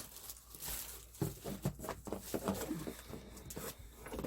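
Irregular rustling and light knocks of paper packing and boxed items being handled and moved around inside a cardboard box.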